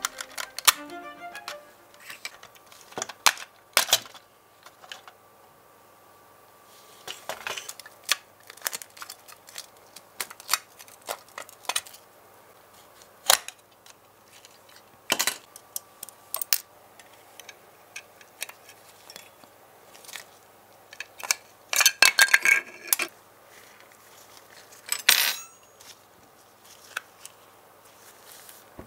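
Diecast model car being taken apart by hand: its metal body shell and plastic parts click, knock and rattle in separate sharp strokes, with a busy clatter about three quarters of the way through and another shortly after.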